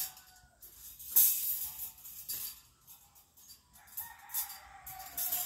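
Rustling and rattling as the wire-and-plastic guinea pig cage is handled and folded, loudest about a second in and again near the end. A faint drawn-out animal call, falling slightly in pitch, sounds in the background near the end.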